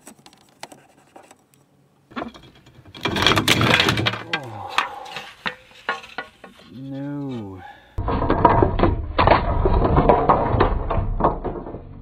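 RV door window frame and glass clattering as they slip out of the door opening and are grabbed, with a startled voice crying out. From about two-thirds of the way in, the same fumble plays again slowed down, deeper and duller.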